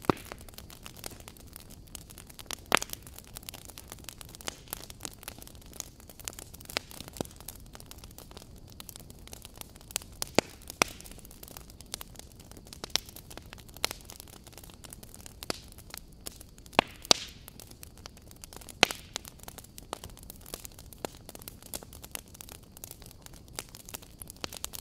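Fire crackling: a steady soft hiss with irregular sharp pops and snaps, a few of them much louder than the rest.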